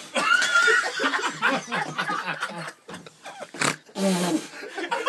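Wordless drunken vocalizing: growl-like, animal-sounding voice noises and slurred sounds without clear words, mixed with laughter.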